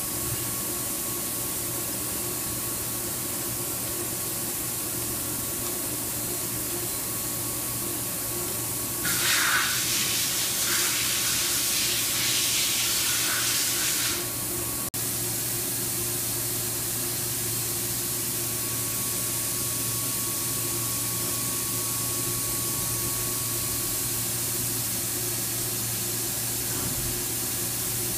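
Steady hum from a CNC milling machine. From about nine seconds in, a louder hissing spray runs for around five seconds and stops with a sharp click.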